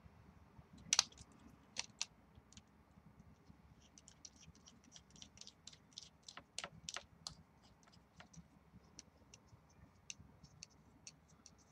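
Light clicks and taps of a flashlight being fitted into a hard plastic bike mount and handled. One sharper click comes about a second in, and a quick run of small clicks follows in the middle.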